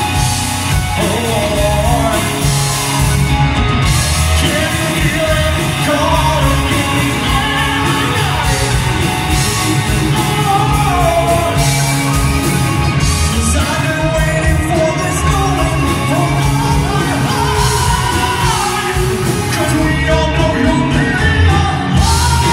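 Live rock band playing loudly in a large hall: electric guitars and drum kit, with a male singer's voice over the band.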